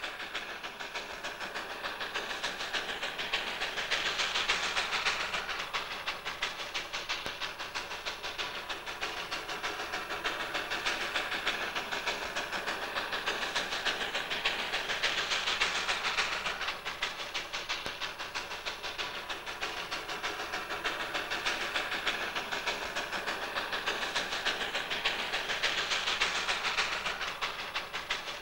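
Steam locomotive working with a train, a rapid run of exhaust beats over a steady hiss, swelling and fading three times.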